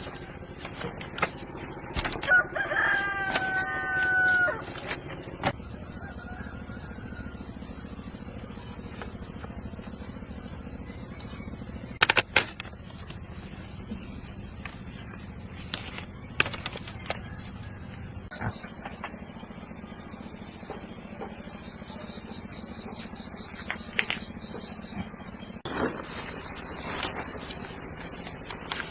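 A rooster crows once, a drawn-out call of about two seconds beginning about two seconds in, over a steady high insect drone. Scattered knocks and clicks follow, the loudest a double knock about twelve seconds in.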